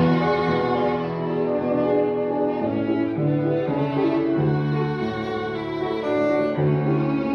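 Music: a bowed string instrument playing a slow melody of long held notes, some of them low.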